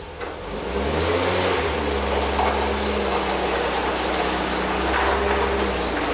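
1973 VW Bay Window camper's air-cooled flat-four engine running steadily at low speed as the van creeps forward. It picks up slightly about a second in.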